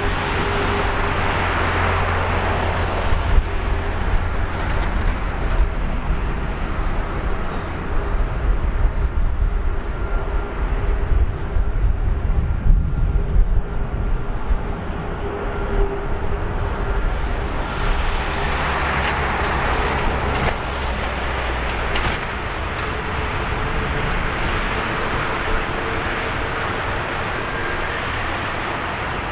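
An Airbus A340-600's four Rolls-Royce Trent 500 jet engines at taxi power as the airliner taxis onto the runway: a steady whine over a low rumble, swelling somewhat about eighteen seconds in.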